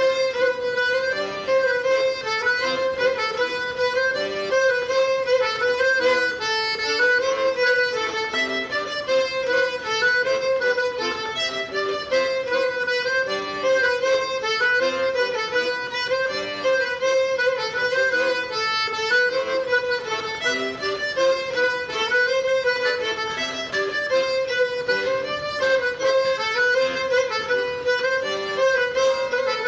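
Fiddle playing a brisk, evenly pulsed Breton dance tune.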